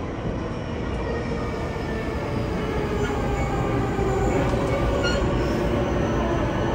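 JR E233-1000 series electric train running, heard from inside the carriage: a steady rumble of wheels on rail with a faint whine from the Mitsubishi IGBT-VVVF traction equipment, slightly louder from about four seconds in.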